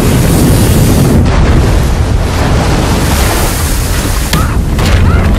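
Film sound effects of a giant wave slamming into a small spacecraft: a loud, dense rush of water over a deep rumble.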